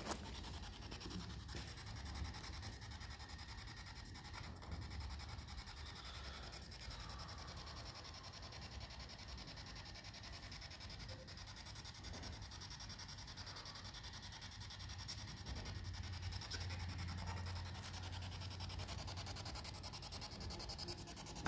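Faint steady hiss with a low rumble from the microphone being handled and a few light clicks; no distinct event stands out. The rumble grows a little louder about three-quarters of the way through.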